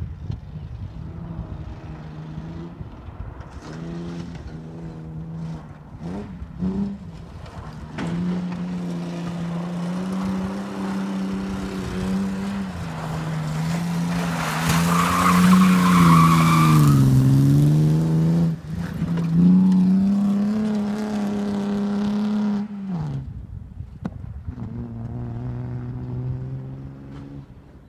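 Bilcross car engine revving hard on a dirt track, its pitch climbing, dropping and climbing again with gear changes and lifts off the throttle. The loudest stretch, a little past the middle, has a rush of tyre and gravel noise over the engine. About three quarters in the engine note cuts off suddenly, and a lower, steadier engine note follows.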